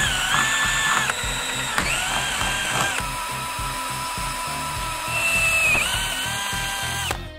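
Power drill boring holes through small aluminium pieces, its motor whine shifting pitch as the bit loads up in the metal. It runs in two stretches, with a short stop about a second in, and cuts off near the end.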